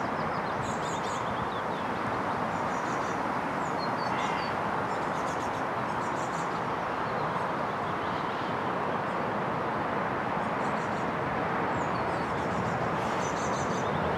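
Small birds chirping in short repeated phrases over a steady rushing noise that holds level throughout.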